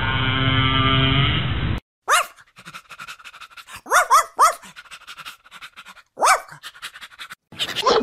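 Humpback whale song, long steady tones, for the first couple of seconds, cut off abruptly. Then a dog gives about four short high yelps that rise and fall in pitch, two of them close together in the middle. Other animal calls start just before the end.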